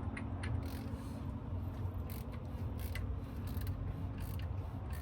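Ratchet wrench clicking in short, irregular runs while a fastener is turned on the engine, over a steady low hum.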